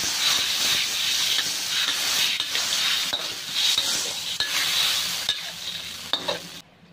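Garlic, chilli and tamarind-water sauce sizzling in a wok while a stainless-steel spatula stirs and scrapes through it, with frequent small scrapes and clicks of the spatula on the pan. The sound cuts off suddenly near the end.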